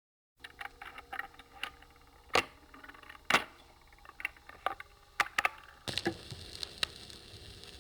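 Scattered light clicks and metallic clinks, with two sharper knocks, then a steady hiss that starts about six seconds in.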